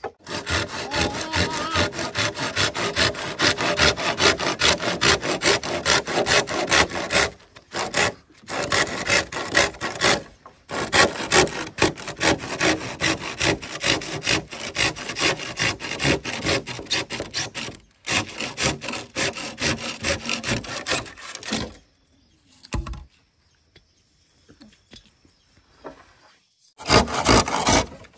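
Hand saw cutting through a green bamboo pole in quick back-and-forth strokes, with a few brief stops and a pause of several seconds near the end before the sawing starts again.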